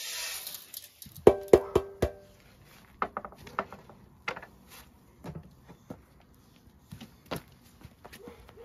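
A brief pour of grain from a metal scoop into an enamel bowl, then four quick ringing metallic taps about a quarter second apart, like the scoop knocked against the bowl. Scattered light knocks and clicks follow.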